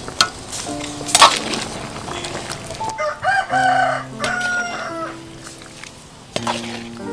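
Two sharp metal clinks about a second apart near the start, then a rooster crowing once, about three seconds in and lasting close to two seconds, over soft steady background tones.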